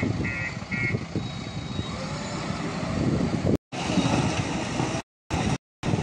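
JCB 3DX backhoe loader's diesel engine running, with a reversing alarm beeping twice before it stops about a second in. Near the end the sound drops out in several short silent gaps.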